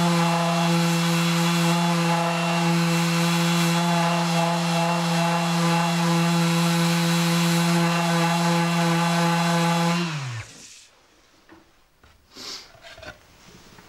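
Random orbital sander running steadily, sanding over a solid-wood board to take off the last of a steamed-out dent. About ten seconds in it is switched off and its motor winds down with a falling pitch, followed by a few faint knocks as it is set down.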